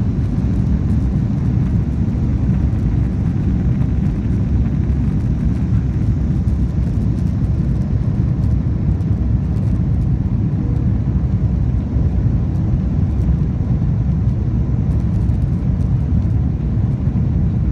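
Airbus A330-200 taking off and climbing, heard from inside the cabin over the wing: a loud, steady, deep rumble of the jet engines at takeoff power and the rushing air.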